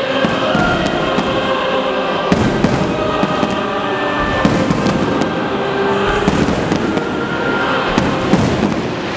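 Aerial firework shells bursting one after another in a dense barrage: repeated sharp bangs and crackling, with no break.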